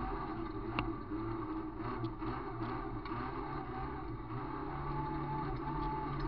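VW Gol rally car's engine heard from inside the cabin, running steadily at fairly low revs through a slow dirt corner. A few sharp clicks of loose stones or gravel hitting the car are heard over the engine.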